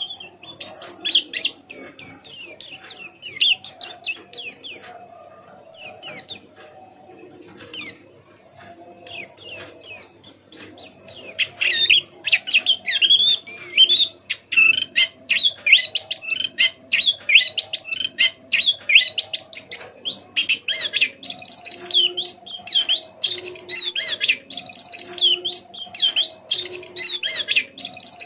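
White-eye (pleci) twittering: quick high chirps and trills in rapid succession, thinning out for a few seconds near the start, then running on fast and dense.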